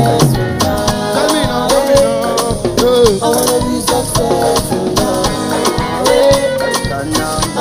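Live band music with a steady beat and a melody line over it, with no rap vocal in this stretch.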